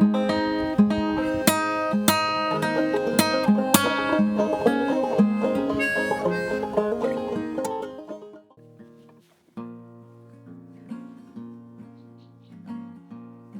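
Bluegrass banjo picking quick, bright notes, fading out about eight seconds in. After a short gap a quieter acoustic guitar starts picking slow, ringing notes, leading into a song.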